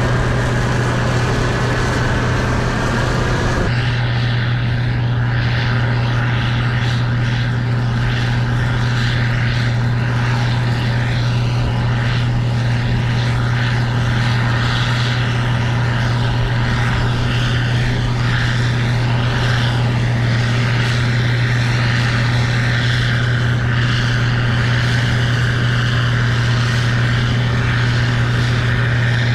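Case IH 2388 Axial-Flow combine's diesel engine and threshing machinery running steadily under load in soybeans: a loud, constant low drone. About four seconds in the higher part of the sound shifts as the machine's noise changes.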